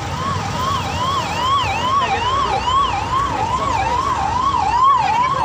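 Electronic siren sounding a fast yelp: the pitch rises and drops back about twice a second, steadily, over a low rumble of road traffic.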